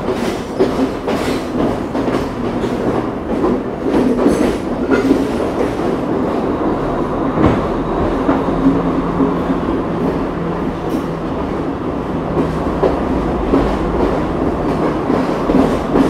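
Passenger train rolling along the track, heard from on board: the wheels clatter over rail joints and points above a steady rumble, with scattered sharp clicks.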